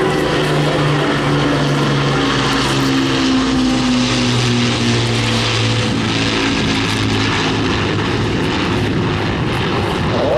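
Avro Lancaster B1's four Rolls-Royce Merlin V12 engines running as the bomber flies past. It is a loud, steady drone whose pitch drops a little about halfway through as the aircraft passes.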